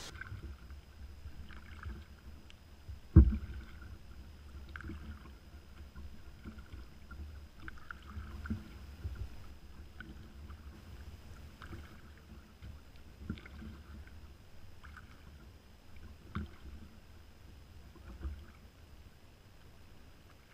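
Kayak paddling picked up by a camera on the bow: the paddle blades dipping and dripping in soft, regular strokes, with one sharp knock on the hull about three seconds in.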